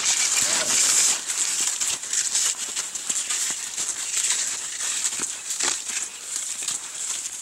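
Cross-country skis sliding and crunching over packed snow, with irregular short clicks and crunches from ski poles planting, heard from one of the moving skiers.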